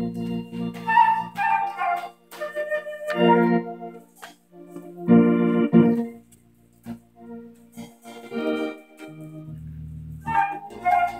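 Organ playing chords over sustained bass notes, with a held low bass note near the end.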